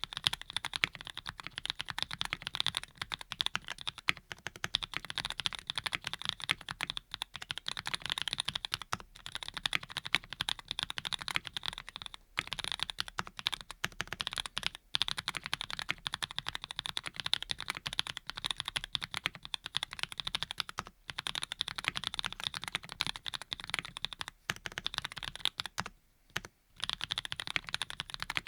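Fast continuous typing on a Graystudio Think6.5 V2 custom mechanical keyboard with lubed Cherry-bottom/Cream-stem linear switches, a steady stream of key clacks with a few brief pauses.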